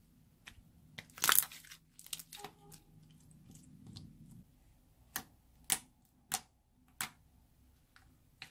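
Clear slime being worked by hand: a short crackling burst about a second in, then a run of four sharp pops about half a second apart near the end.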